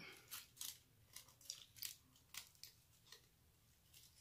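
Faint, wet chewing of a mouthful of burger, with soft mouth clicks and smacks coming irregularly, two or three a second.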